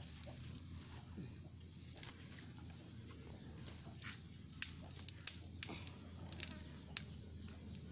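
Faint outdoor ambience: insects droning steadily at a high pitch, with a few scattered sharp clicks.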